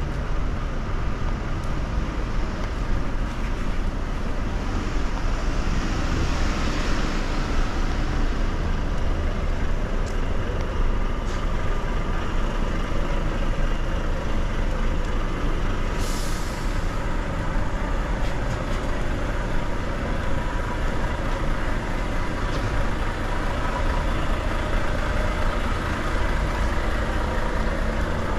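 Steady low rumble of a large road vehicle's engine and road noise, with one short hiss of air about halfway through.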